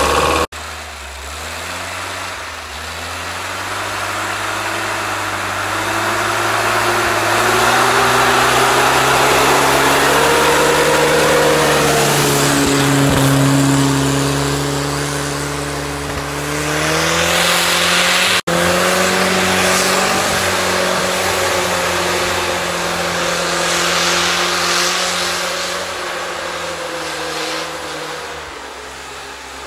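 UAZ-469 off-roader's engine revving hard as it drives through deep snow. The engine note rises and falls slowly over several seconds, with the tyres spinning and throwing snow, and the sound breaks off abruptly twice.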